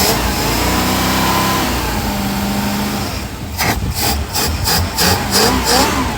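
Car engine fed by a Holley 4160 four-barrel carburetor, running at a steady idle. About three seconds in, a quick series of sharp rushing pulses starts, roughly four a second, as the throttle is blipped.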